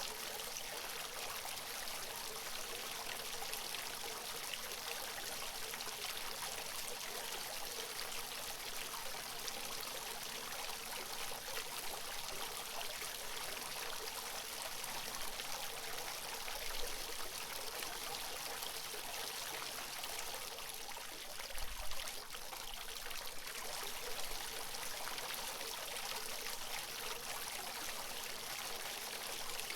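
Water of a natural fountain splashing and trickling in a steady, even rush. Twice, about halfway through, a brief low thump.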